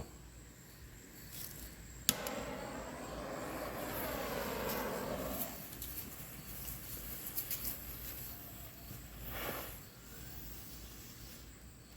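Smoke ball igniting with a sharp click about two seconds in, then hissing for about three seconds as it starts pouring out smoke. A short, softer rush follows near the end.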